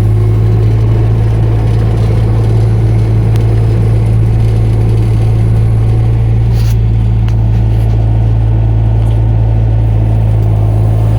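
Mini excavator's engine running at a steady speed, a loud, constant low drone with no change in pitch.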